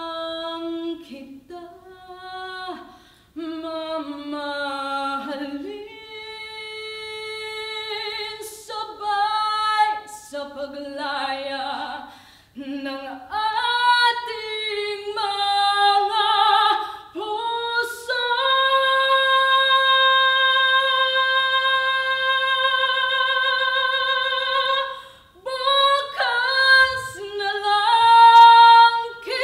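A woman singing a Tagalog ballad unaccompanied. She moves through sung phrases, holds one long high note with vibrato for about seven seconds from a little past the middle, then climbs to a louder, higher phrase near the end.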